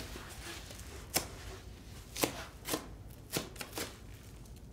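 Utility knife cutting into a wearable bass backpack's fabric shell and foam padding, heard as a handful of sharp, separate snips and clicks about half a second to a second apart.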